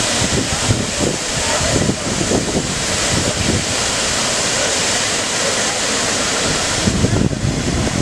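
Steady loud rush of a waterfall's falling water, with wind buffeting the microphone in uneven low rumbles, heaviest near the end.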